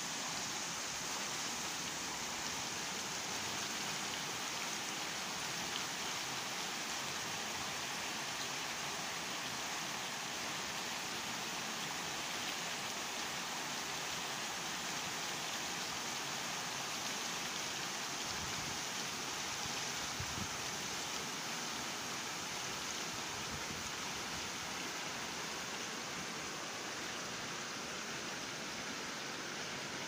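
A shallow, stony stream flowing: a steady, even rush of water over stones and sand.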